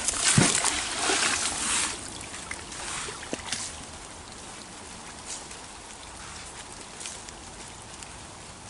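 Brook water flowing steadily. In the first two seconds there is a loud burst of rustling noise with a low thud.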